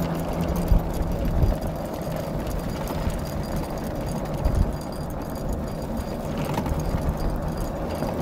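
Steady rumbling of an unpowered ATV rolling along the road as a team of sled dogs pulls it, with a few sharper thumps, about one and a half and four and a half seconds in.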